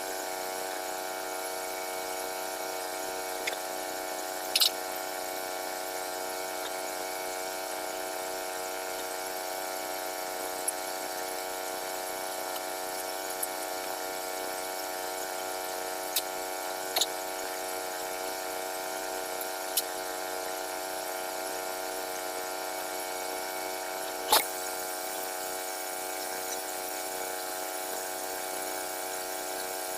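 HM122 portable bandsaw mill running steadily under its gas engine, an even mechanical drone, with a few sharp clicks scattered through.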